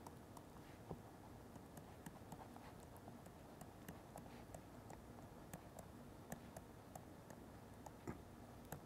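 Faint, irregular light taps and clicks of a stylus writing on a touchscreen, several a second, over a quiet room.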